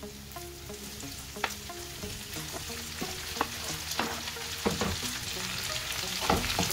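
Shallots and garlic sizzling in sesame oil in a nonstick pan as chopped tomato goes in, with a wooden spatula scraping and clicking against the pan while stirring; the stirring grows busier and louder near the end.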